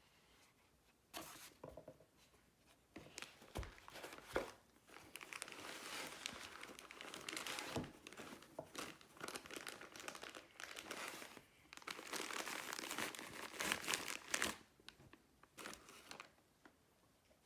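Plastic or paper packaging being crinkled and torn open by hand: bursts of crackly rustling, broken by a few light knocks.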